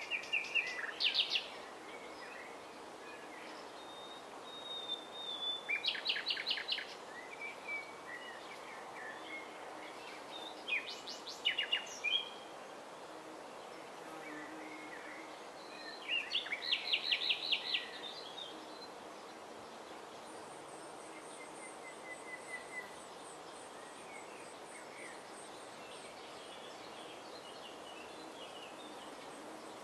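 Common nightingale singing: loud phrases of rapidly repeated notes, four of them a few seconds apart, over a steady background hiss. In the second half a faint, high, rapid trill runs on.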